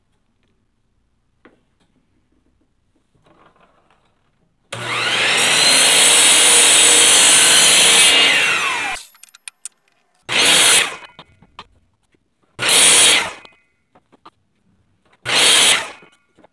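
A 12-inch sliding miter saw spins up, cuts through a softwood board at an angle, and winds down, about four seconds in all. It is followed by three short noisy bursts roughly two and a half seconds apart.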